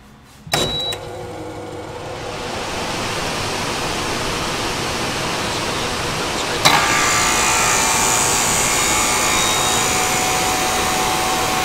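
Logo intro sound effect: a sharp hit just after the start, then a noisy rush that swells over the next couple of seconds. A second sharp hit comes about six and a half seconds in, after which the rush carries on with faint ringing tones.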